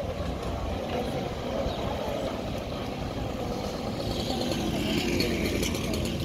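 Street traffic: a motor vehicle's engine running close by, getting louder about four seconds in.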